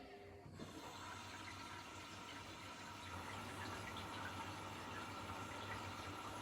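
Washing machine running with a steady low hum; about half a second in, a steady rush of water starts and carries on, with faint small ticks in it.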